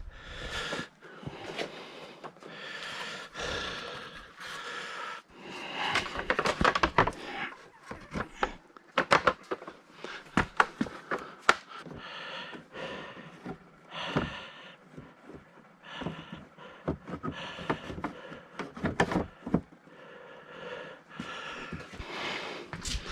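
Irregular knocks, clanks and scraping from metal parts and tools being handled, with short patches of hissy noise between them.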